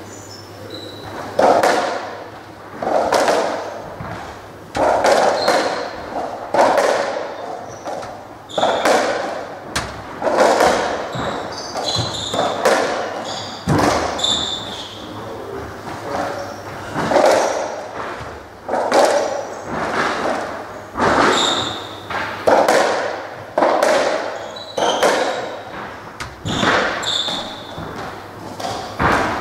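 UK racketball rally on a squash court: the hollow rubber ball struck by rackets and smacking off the walls and floor about once a second, each hit ringing in the court's echo, with short squeaks between hits.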